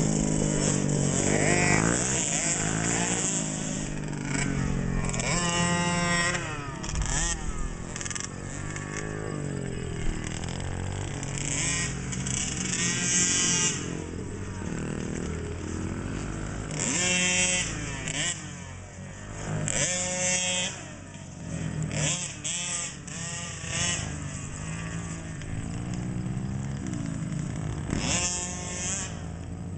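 Small 50cc two-stroke youth motocross bikes, including a KTM 50, revving up and down as they ride the track. The engine pitch climbs to a high whine and drops off again several times as the riders open and close the throttle, and more than one bike is heard at once.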